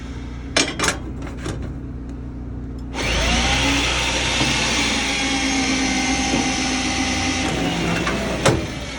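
Electric rebar bender bending a bar: a few light metal clinks, then about three seconds in its motor starts with a rising whine and runs steadily for about five seconds before winding down, followed by a sharp clank.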